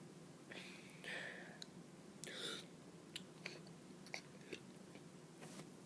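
Faint mouth noises from a child: scattered small clicks and a couple of short breathy puffs.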